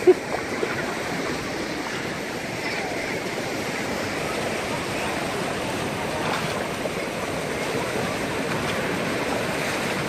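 Small waves washing and fizzing in the shallows at the shoreline, a steady rush of surf, with faint children's voices. A brief sharp thump comes right at the start.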